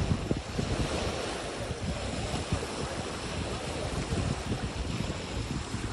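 Small waves breaking and washing up on a lakeshore, with wind gusting on the microphone.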